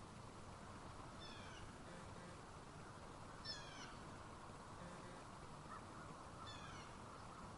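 Three short animal calls, each falling in pitch, about two and a half seconds apart, over a faint steady background hiss.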